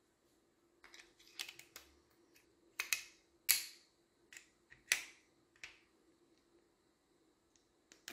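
Pietta reproduction Colt percussion revolver's action clicking as it is worked by hand: a series of sharp metallic clicks over a few seconds, the loudest about three and a half and five seconds in.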